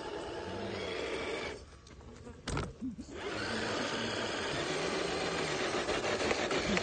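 Electric drive motors and gearboxes of 1:10 scale RC crawler trucks whining steadily as they climb a steep dirt slope. The whine drops out for about a second and a half around two seconds in, with a single sharp knock, then picks up again.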